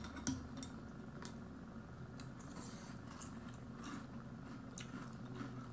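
Chewing a mouthful of crunchy cereal in milk: faint, scattered crunches and small clicks.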